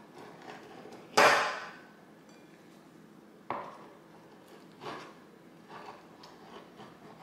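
A kitchen knife knocking against a cutting board while cutting sticky soaked rice paper into noodle strips. One loud knock about a second in, another a couple of seconds later, then a few lighter taps.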